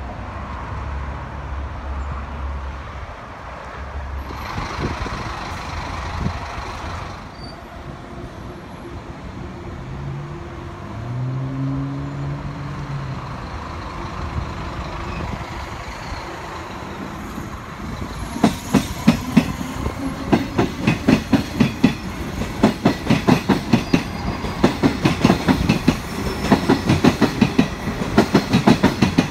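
A city bus engine running as the bus pulls around the interchange, with a brief burst of hiss about five seconds in and the engine pitch rising around ten seconds in. From about 18 seconds a Comeng electric suburban train passes close by, its wheels making a rapid clickety-clack over the rail joints, louder than the bus.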